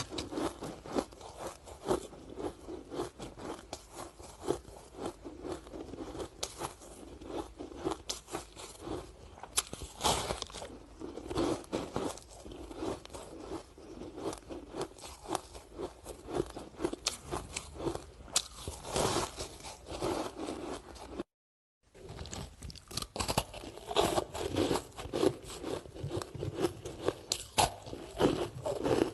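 Ice sticks being bitten and chewed, a dense run of sharp crunches and cracks. The crunching stops dead for a moment about two-thirds through, then carries on.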